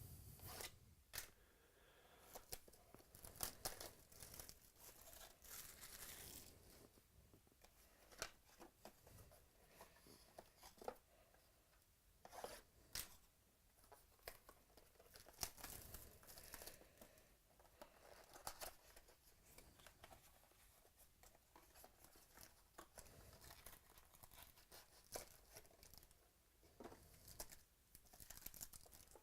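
Faint, intermittent tearing and crinkling of foil trading-card pack wrappers being opened and handled, with scattered sharp crackles and rustles.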